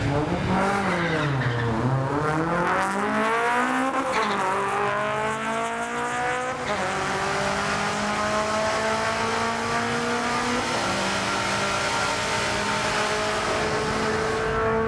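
Drag car doing a burnout: the engine is revved down and up in the first few seconds, then held at high revs with its pitch creeping slowly upward while the rear tyres spin and squeal.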